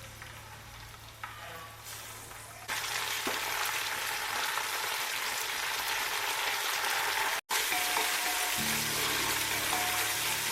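Mint leaves frying in hot oil in a wide pan, a steady sizzle that gets much louder about two and a half seconds in.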